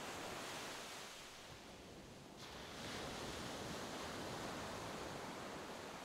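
Recorded ocean waves washing steadily, easing off for a moment and then surging back about two and a half seconds in.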